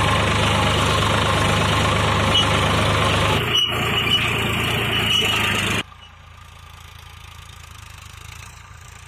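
Sonalika tractor's diesel engine running steadily up close while it pulls a cultivator through the field. About six seconds in the sound drops abruptly to a much fainter, distant tractor.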